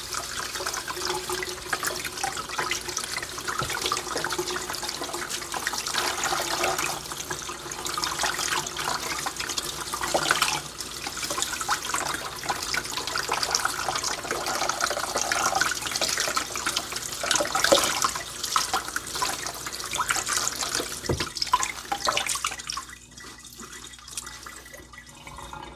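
Cold water from a kitchen tap running and splashing over leafy greens in a strainer in the sink as they are rinsed and rubbed clean. The water stops near the end.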